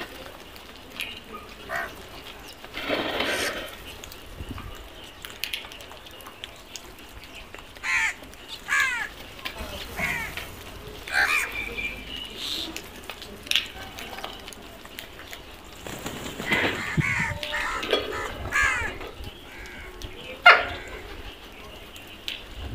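House crows cawing while feeding: short, harsh calls from several birds come in scattered bursts, thicker in the second half, with one sharp, loud call near the end.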